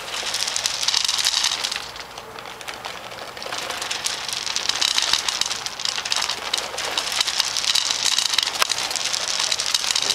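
Feed pellets pouring down a PVC pipe and pattering into a wooden trough, a dense rattle like rain. It runs for about two seconds, eases off, then starts again at about three and a half seconds and keeps going, with sharper clicks scattered through it.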